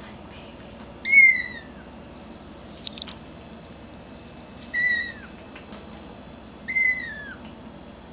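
Very young grey kitten meowing three times, each a short high call that falls in pitch at the end, calling for its mother. A few faint clicks come about three seconds in.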